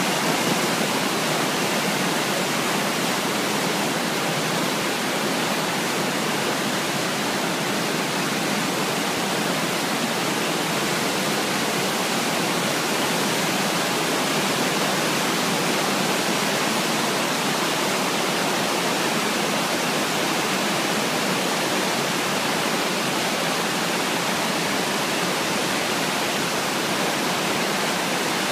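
River in flood: fast brown floodwater rushing and churning through rapids, a steady, unbroken rush of water.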